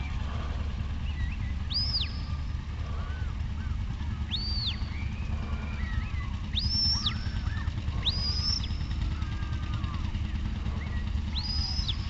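A shepherd's whistle commands to a working sheepdog: five short, high whistles, each rising sharply, holding and dropping, spaced a few seconds apart. A steady low hum runs underneath.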